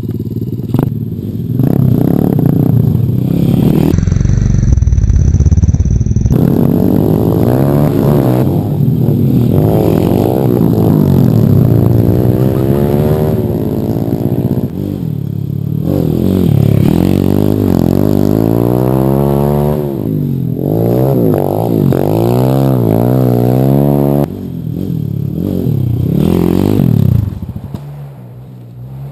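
A 140 cc Apollo pit bike's single-cylinder four-stroke engine is ridden hard, its revs rising and falling over and over as it blips the throttle. A loud low rumble covers it briefly about four seconds in, and the engine fades lower near the end.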